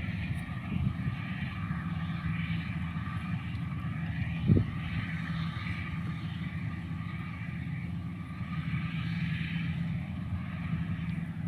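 An engine running steadily, with one sharp knock about four and a half seconds in.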